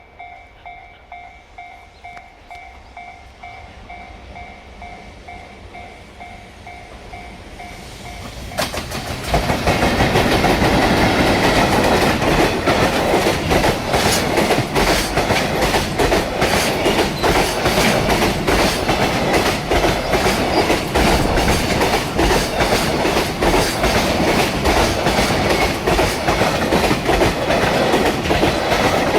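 Level-crossing alarm ringing in a steady pulse over the rising rumble of an approaching freight train. About eight seconds in, the EF210 electric locomotive and its container wagons reach the crossing and pass, their wheels clattering loudly and rapidly over the rail joints for the rest of the time.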